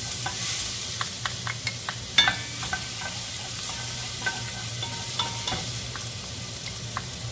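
Crushed garlic sizzling in a little hot oil in a pot while a wooden spoon stirs it, with scattered light knocks and clinks as the spoon and a glass bowl tap the pot, the loudest about two seconds in.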